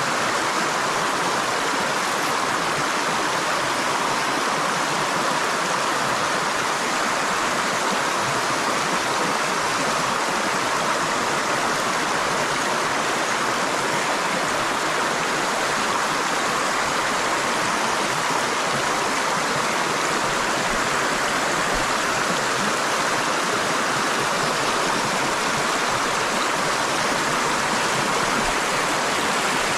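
Shallow river water rushing steadily over a stony riffle, the white water close by.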